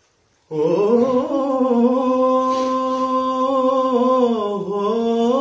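A man's voice singing unaccompanied, holding one long drawn-out note of a Punjabi Sufi rubai. It starts about half a second in, stays level, then dips and climbs again near the end.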